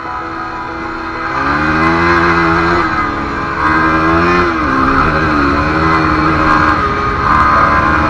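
Yamaha WR250R's 250 cc single-cylinder four-stroke engine revving up as the bike pulls away, louder from about a second and a half in, its pitch rising and dipping several times as it revs and shifts, with a steady rushing noise over it.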